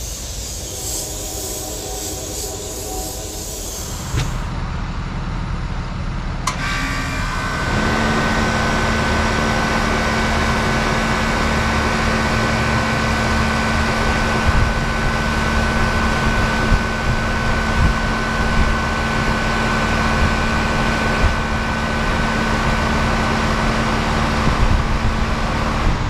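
A 1988 Carrier Round One heat pump starting up in cool mode: a low rumble comes up about four seconds in, there is a click a couple of seconds later, and by about eight seconds the unit is running steadily. Its Carlyle reciprocating compressor gives a low hum with a steady whine, under the rush of the condenser fan.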